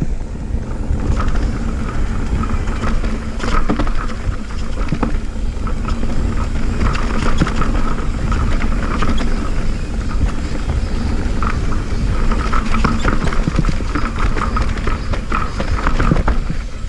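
Mountain bike descending a rough dirt trail: tyres rolling over the ground with a steady rumble, the bike rattling with many quick knocks and clicks, and wind on the microphone.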